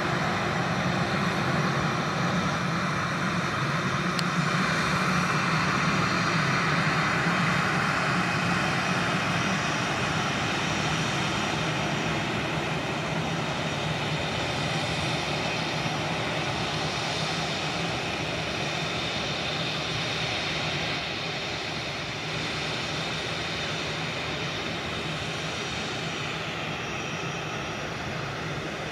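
Jet engines of an Airbus A320-family airliner running as it rolls along the runway: a steady, loud rushing roar that is loudest in the first few seconds, then slowly fades as the aircraft moves away.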